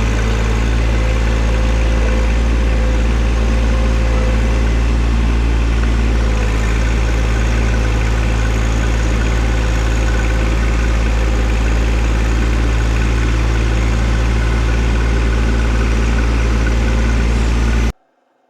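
John Deere 1025R compact tractor's three-cylinder diesel engine running steadily under load, a loud, heavy, even drone. It cuts off abruptly just before the end.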